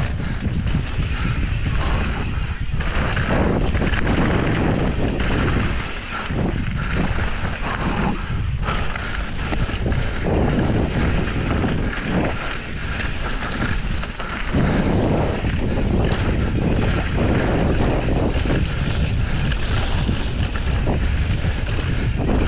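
Wind buffeting the camera microphone over the steady rumble and rattle of a mountain bike's tyres and frame on a dirt trail during a fast descent, swelling and easing as the speed changes.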